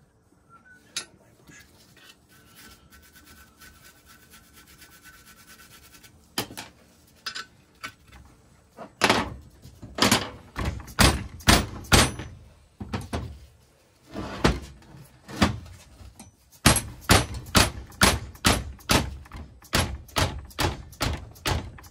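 Hammer blows on a rusty cast-iron engine vaporiser casting, knocking at a seized stud to work it loose. The hits start about nine seconds in as scattered single blows, then come in a fast run of several a second near the end.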